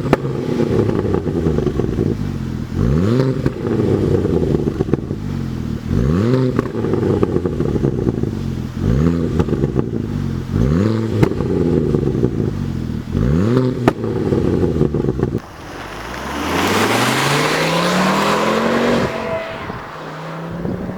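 Ford Focus ST Mk2's turbocharged 2.5-litre five-cylinder engine heard through its exhaust, revving up sharply about six times in quick succession. After that comes a quieter, longer rise in engine pitch with a rushing air sound, which settles to a steadier note near the end.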